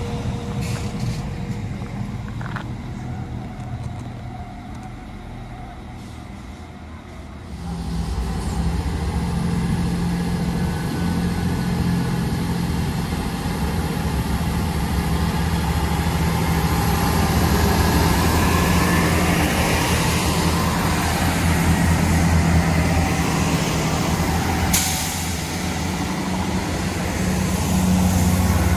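A Northern Class 195 diesel multiple unit pulling away and fading. From about eight seconds in, an East Midlands Railway Class 158 diesel multiple unit comes in and runs past with a steady low engine drone, with one brief sharp sound near the end.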